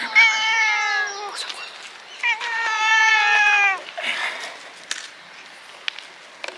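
A cat meowing twice: two long calls, each falling in pitch, about two seconds apart.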